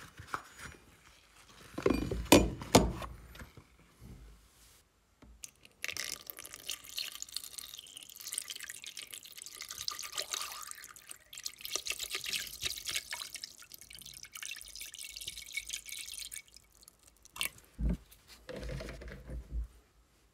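Hydrochloric acid poured in a steady stream into a plastic tub onto a rusty steel hatchet head, splashing for about ten seconds. A few loud knocks sound in the tub about two seconds in and again near the end.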